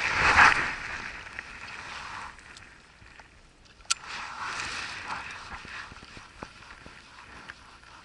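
Close handling noise: a jacket sleeve and hand rustle right past the microphone at the start. A sharp click comes about four seconds in, then a shorter stretch of rustling as the spinning rod is handled.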